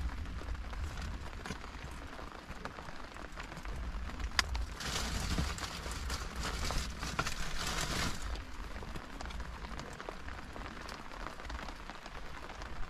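Steady rain pattering on a parked car, with scattered light drop taps. Plastic bags rustle more loudly for about three seconds midway.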